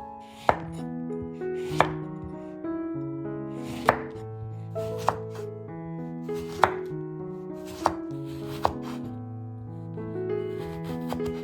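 Knife cutting food on a cutting board: seven sharp strikes at uneven intervals, a second or two apart. Soft piano music plays underneath.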